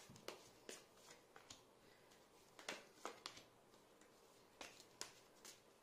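Tarot cards being handled and shuffled by hand: faint, irregular soft clicks and snaps of card stock, about a dozen in all.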